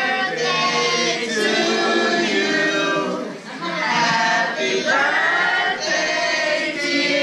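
A group of mixed voices singing together, typical of a birthday song sung by family and guests.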